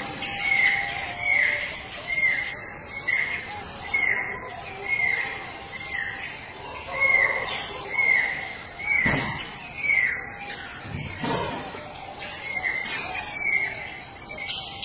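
A short, high chirping call repeated evenly about every 0.7 seconds, each note dipping in pitch. Two dull thumps come about nine and eleven seconds in.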